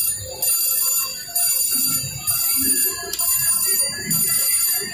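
Electronic slot-machine chimes while the reels spin: a bright, bell-like pattern that repeats about once a second.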